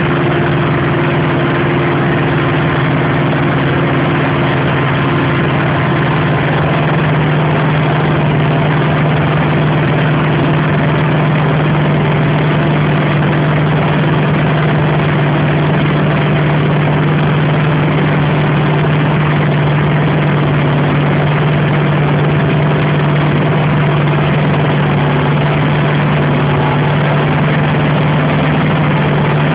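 Claas Jaguar 695 SL forage harvester working in standing maize: a loud, steady drone of engine and chopping machinery with a strong low hum that does not change.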